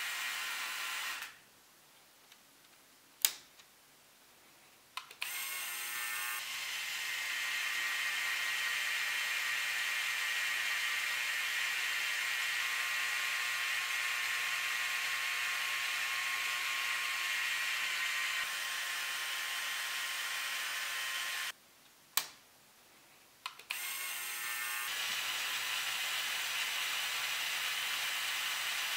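Plastic LEGO Technic gear train of the 42082 crane whirring steadily as its functions are driven. It stops twice for a few seconds, and each pause holds one sharp click.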